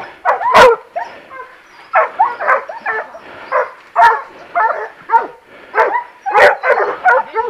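Leashed boar-hunting dogs yelping and barking eagerly in a string of short, pitch-bending calls about every half second to a second.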